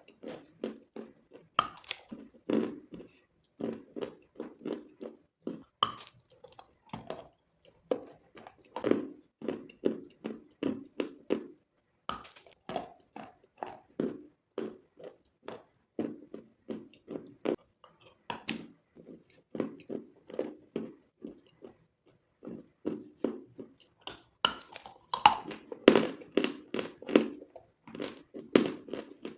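Close-miked crunching of chalk being bitten and chewed: sharp, crisp bites followed by runs of quick chewing crunches at about four or five a second, louder near the end.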